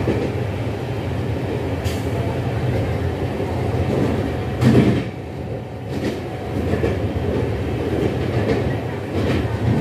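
Train running at speed, heard from an LHB Vistadome coach: a steady rumble of wheels on rail, with a few sharper knocks as the wheels pass over joints and points, the loudest about halfway through.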